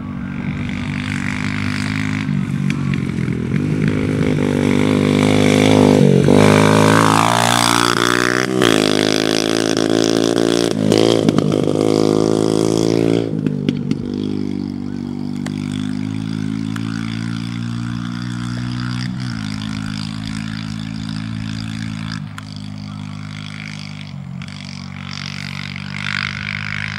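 125cc dirt bike engine revving hard as it is ridden, its pitch climbing and dropping again and again through the gear changes. It is loudest and highest-pitched from about five to thirteen seconds in, then settles into a steadier, lower note.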